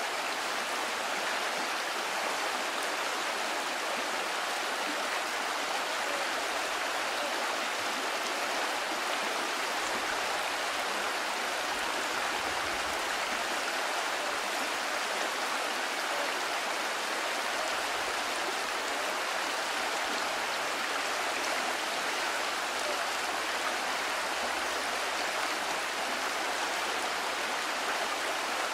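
Steady rushing of a shallow, fast river flowing over a rocky bed.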